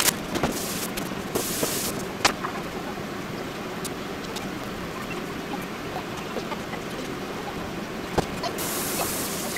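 Steady rushing background noise, with a few sharp clicks and two brief rustles as plastic-wrapped groceries and a plastic cutting board are handled on a wooden counter.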